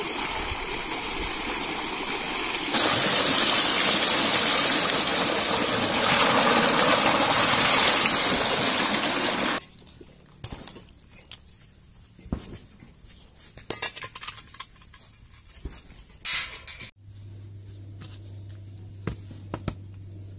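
Water gushing steadily, getting louder about three seconds in, until it cuts off about halfway through. Then scattered knocks and clinks as bricks are set down on the ground, over a low steady hum.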